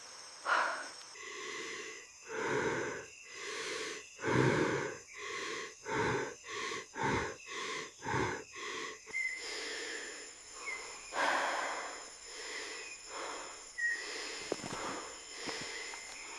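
A person breathing heavily in ragged, wheezing breaths that quicken into rapid panting through the middle, then slow again. A steady high-pitched insect chirring runs underneath.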